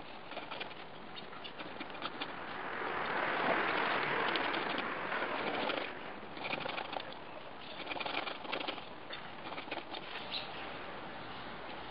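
A small hand saw rasping back and forth through a golf ball's flexible outer cover, in short bursts of scratchy strokes. A broad hiss swells and fades in the middle, louder than the sawing.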